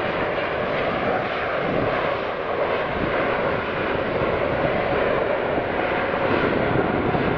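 Airbus A321neo's Pratt & Whitney PW1100G geared turbofan engines running steadily as the jet rolls along the runway, an even jet noise.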